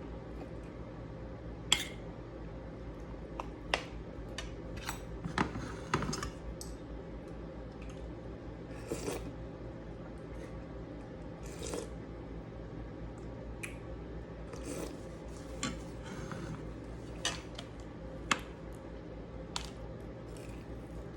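Eating sounds: scattered sharp clicks of utensils against a plate and bowl, with short bouts of chewing on crispy pork and cabbage, over a steady low hum.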